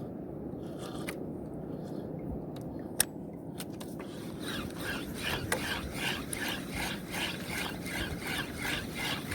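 Spinning reel being cranked in a steady rhythm of about three strokes a second, a jigging retrieve, starting about four seconds in over steady low background noise. A few sharp clicks come earlier, the loudest about three seconds in.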